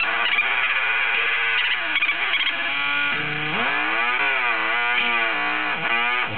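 Circuit-bent Kawasaki toy keyboard putting out glitchy electronic noise. About two and a half seconds in, it turns into a buzzy pitched tone that swoops up and down again and again as the bent circuit's pitch is varied.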